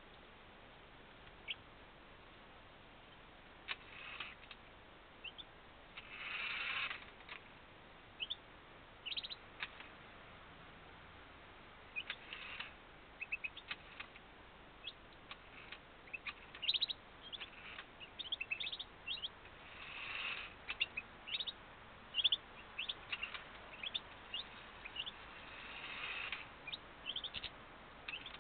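Small cage finches chirping: short, high tweets scattered all through, with a few louder, noisier rushes of about a second each.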